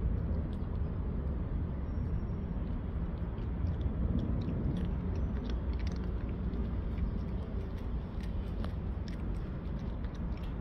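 A calico cat crunching dry kibble, with small crisp crunches mostly in the second half, over a steady low rumble.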